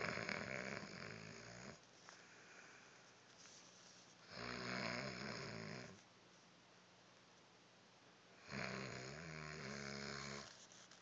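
Snoring: three long snores about four seconds apart, each a low buzzing breath, with quiet breathing between them.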